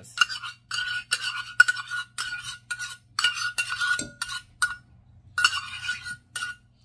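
A metal spoon scraping and tapping thick Greek yogurt out of a stainless steel measuring cup, short scrapes and clinks with a light metallic ring, about three a second, pausing briefly around five seconds in.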